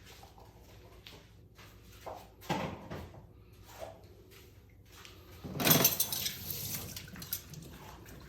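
Kitchen handling during food preparation: dishes and utensils knocking and scraping, a few brief sounds, then a louder stretch of clatter and rustling about five and a half seconds in.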